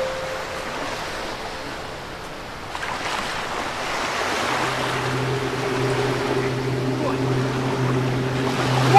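Sea surf washing on a sandy beach, a steady hiss of breaking waves with some wind. About halfway through, a steady low hum joins it and holds.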